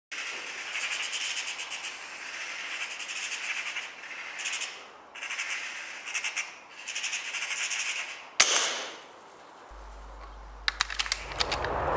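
Eurasian magpie chattering: repeated rattling bursts of rapid harsh clicks. About eight seconds in they stop and a single sharp shot cracks, with a short ringing tail.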